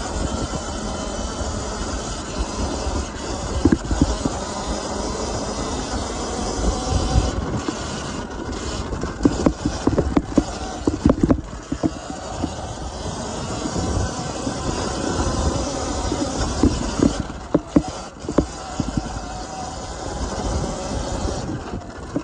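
Sur-Ron Ultra Bee electric dirt bike ridden up a dirt trail: a steady rush of wind and tyre noise on loose dirt, broken by irregular knocks and thumps as the bike goes over bumps.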